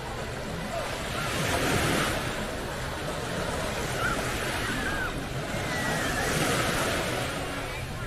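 Small sea waves breaking and washing up a sandy shore, a steady rush that swells twice.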